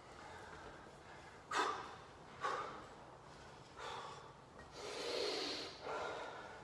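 A man taking about five sharp, forceful breaths in separate bursts while psyching up before a timed set of crunches.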